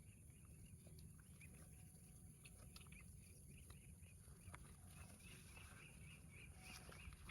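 Near silence: faint outdoor ambience with a low rumble and a steady high hiss, and a quick run of faint high chirps in the last couple of seconds.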